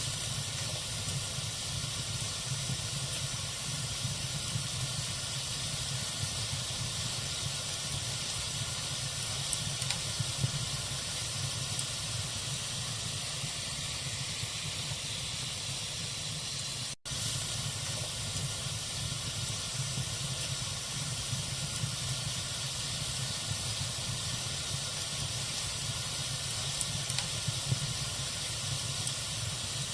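Wood fire burning in a fireplace: a steady hiss and low rumble of flames, with a few small crackles and pops from the logs. The sound cuts out for an instant about seventeen seconds in.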